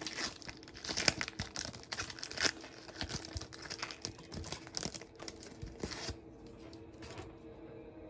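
Foil wrapper of a Panini Mosaic baseball card pack being torn open and crinkled by hand, a dense crackling that stops about six seconds in.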